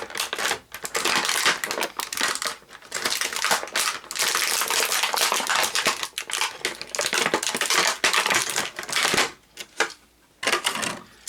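Plastic toy packaging crackling and crinkling as an action figure is worked free of its package, busy and irregular for most of the stretch, then dying down about two seconds before the end.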